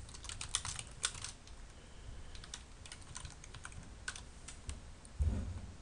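Computer keyboard typing: a quick run of key clicks in the first second and a half, then scattered single keystrokes. A short low thump comes near the end.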